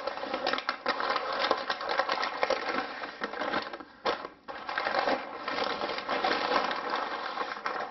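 Grease-soaked butcher paper crinkling and crackling as it is handled and crumpled beside a smoked brisket, with a brief break about four seconds in.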